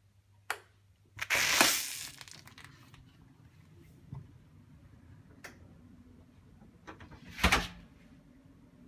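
A hotel room door being unlocked and opened: a click, then about a second of handle and door noise. A few light knocks follow, and near the end comes a second brief, loud door sound.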